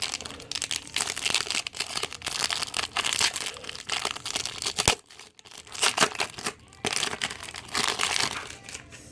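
Plastic wrapper of a Score football card pack being torn open and crinkled. There is a sharp snap about five seconds in, a brief pause, then more crinkling.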